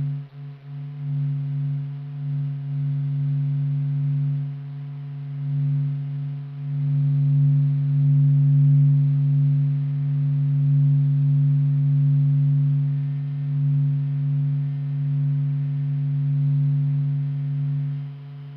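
Sonification of the Sun's surface oscillations from the SOHO spacecraft's Doppler instrument data: a steady low droning hum of a few held tones that slowly swells and eases in loudness.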